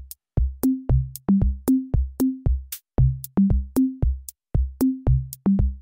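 Electronic background music: a drum-machine beat with a kick drum about twice a second, crisp clicks between the kicks and short bass notes.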